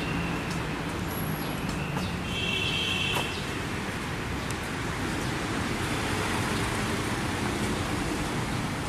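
Steady outdoor city background noise, a hum like distant traffic. A brief high tone sounds about two to three seconds in.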